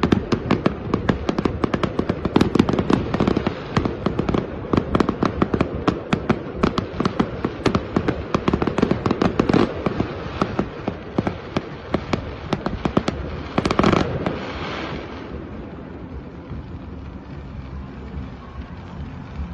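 Fireworks going off in a dense, rapid string of bangs and crackles, several a second, for about fourteen seconds. A single loud burst comes near the end, and the bangs then die away to a low, steady rumble.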